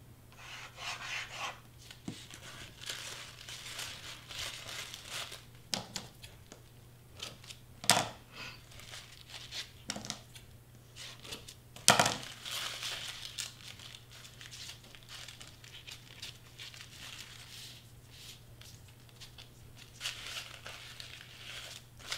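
Crepe streamer paper rustling and crinkling as it is handled and pressed down onto foam board, with two sharp scissor snips, the loudest sounds, about a third and halfway through. A faint steady low hum lies underneath.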